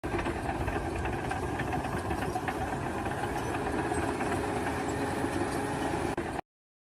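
A heavy engine running steadily, with a dense low rumble, cutting off abruptly near the end.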